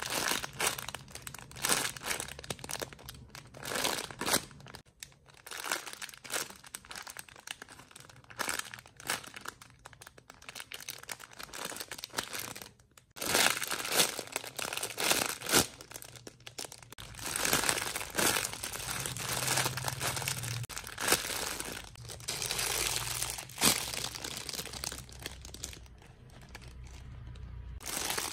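Plastic packaging crinkling and rustling in irregular bursts as squishy toys are handled.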